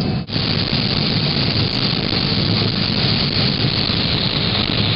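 Combine harvester running steadily while harvesting corn, a constant loud machine noise with a heavy low rumble.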